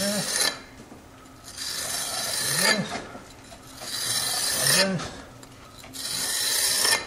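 A hand texturing tool scraping down setting brownstone reproduction mortar in long strokes, about four of them roughly two seconds apart, raking in a tooled, chisel-cut finish. Each stroke has a short pitched sound that rises and falls.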